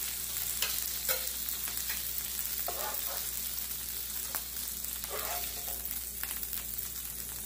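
Quesabirrias frying in birria consommé fat in a nonstick pan, a steady sizzle, with a few short clicks and scrapes as they are lifted out with a spatula.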